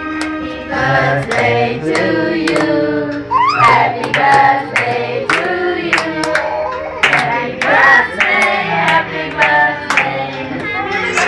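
A group of people singing a birthday song together while clapping along in time, about two claps a second.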